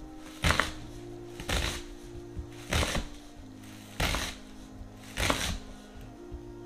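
Kitchen knife slicing through a red onion onto a wooden cutting board: five sharp knocks about a second apart. Under them, humming vocal background music holds steady notes.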